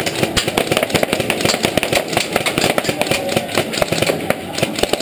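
Airsoft guns firing in rapid, dense volleys: many sharp cracks a second, with several guns overlapping. The firing thins out near the end.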